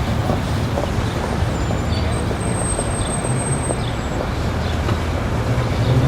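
City street ambience: a steady traffic rumble with scattered faint clicks, and a thin high whine lasting about a second and a half from about two seconds in.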